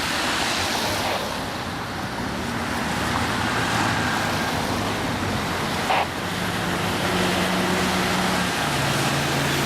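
Motor vehicle engines running amid steady road noise, with a low hum that shifts in pitch and a short click about six seconds in.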